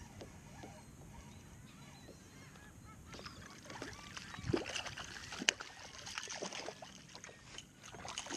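Hooked spotted seatrout splashing and thrashing at the water's surface beside a kayak as it is reeled in. The splashes come as a run of short, sharp bursts from about three seconds in, with the sharpest one near the middle.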